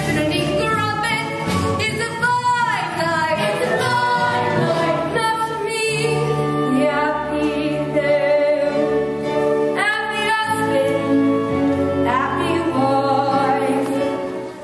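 Stage musical number: voices singing a show tune with instrumental accompaniment, moving through wavering sung lines at first and then holding long notes over sustained chords.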